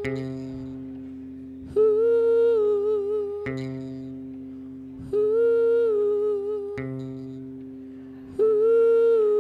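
Experimental rock music: a wordless hummed vocal note, rising a little and then settling, held for about a second and a half, three times, alternating with guitar chords that ring and fade, over a low steady drone.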